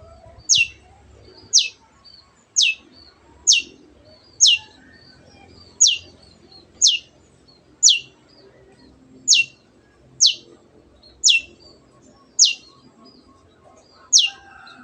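A long-tailed shrike (cendet) repeats a short, sharp call about once a second. Each call is a quick falling sweep from high to lower pitch, with fainter chatter between the calls.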